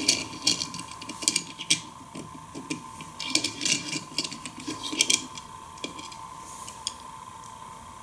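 Diecast toy car handled on a wooden tabletop: a quick run of light clicks and taps as it is picked up, turned over and set down, thinning out after about five seconds. A faint steady high-pitched tone runs underneath.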